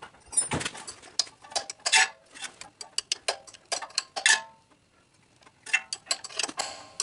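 Plain, non-ratcheting wrench clinking on a 10 mm bolt as it is taken off and refitted for each short turn: a run of irregular light metallic clicks and taps, with a pause of about a second past the middle.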